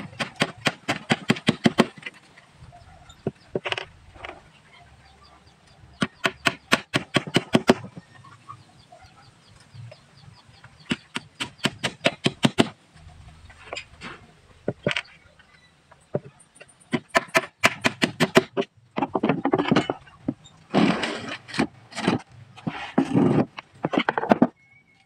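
A hammer tapping small nails into plywood panel edges, in quick runs of light strikes separated by short pauses. The runs grow denser and noisier near the end.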